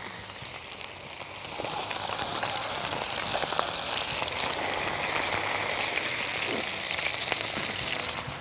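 A stuffed chicken roll, skin on, sizzling and crackling in hot oil in a frying pan as it is turned and browned on all sides. The sizzle grows louder about a second and a half in.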